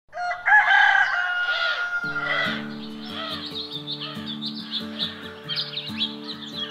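A rooster crows once, loudly, over the first two seconds or so. Background music with held low chords then comes in under steady birdsong chirping.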